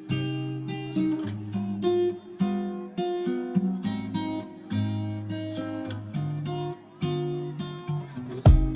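Background music: acoustic guitar plucking a melody over chords, with louder, denser strumming beginning near the end.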